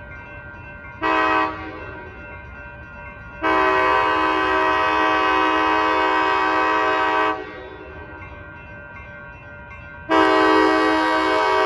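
Union Pacific diesel locomotive's air horn sounding several notes together as it approaches a grade crossing: a short blast about a second in, a long blast of about four seconds, then another long blast starting near the end.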